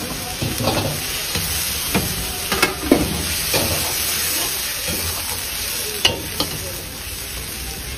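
Food sizzling in a wok while a long metal ladle stirs it, scraping the wok, with several sharp clanks of the ladle against the metal.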